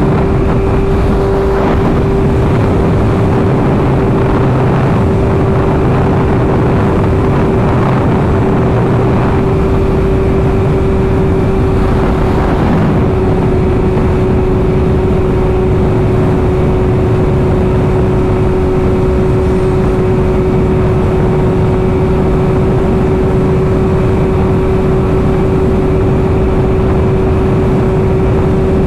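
A 1000cc inline-four sport bike at a steady cruise, its engine holding one even pitch under a constant rush of noise.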